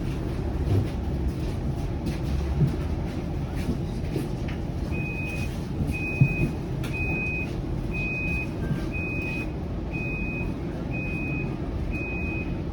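Electronic warning beeper on a Flexity Outlook low-floor streetcar, starting about five seconds in and then giving short high-pitched beeps about once a second. Under it runs the steady low rumble of the streetcar's interior, with a single knock partway through.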